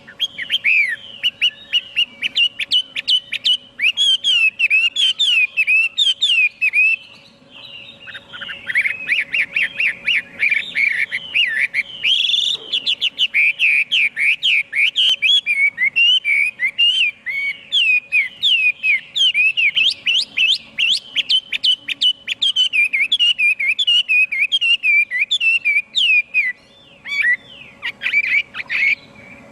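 Chinese hwamei singing a long, fast run of loud, sweeping whistled notes, with a brief break about seven seconds in. A faint steady hum lies underneath.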